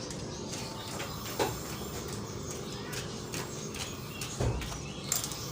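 Steady background noise, with two brief knocks, one about a second and a half in and one near the end.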